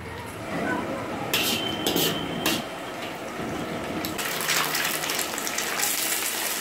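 Beaten eggs sizzling in a hot iron wok while being stirred and scrambled with a metal slotted spoon, with a few sharp metal clinks and scrapes of the spoon against the wok about a second and a half to two and a half seconds in. The sizzle grows louder about four seconds in.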